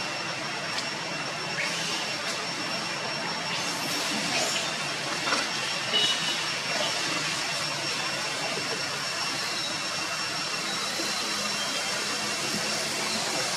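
Steady outdoor background hiss with a few thin, high steady tones running through it, and some brief faint sounds near the middle.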